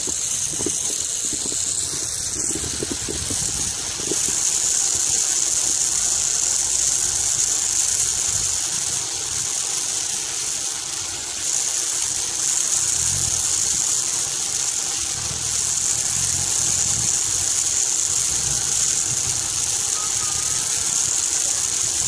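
Sky bike rolling along its high steel cable while being pedalled: a steady rushing hiss with a low rumble that comes and goes.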